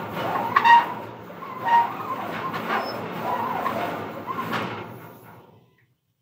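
CNC plasma table's stepper motors driving the gantry through a dry run at 3,500 mm/min, with no cutting. They whine in shifting tones as the axes change speed and direction, with a few sharper knocks, then wind down and stop about five and a half seconds in. The machine runs at this feed without bogging down.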